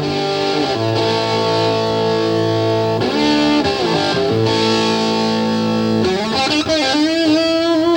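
Rock music with a distorted electric guitar: held chords that bend in pitch, then a sliding lead line with vibrato in the last couple of seconds.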